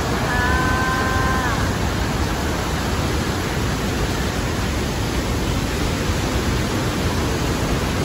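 Rhine Falls: a steady, loud rush of white water pouring over the falls.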